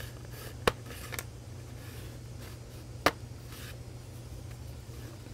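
Sharp clicks as the clipped-in bottom cover of a Dell XPS 15 9500 laptop is pried loose: a loud snap under a second in, a fainter click just after, and another loud snap about three seconds in, over a steady low hum.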